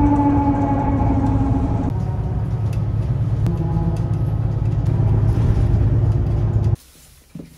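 City bus running, heard from inside the passenger cabin: a steady low rumble with a hum whose pitch steps up or down about two seconds in and again a little later. It cuts off suddenly near the end.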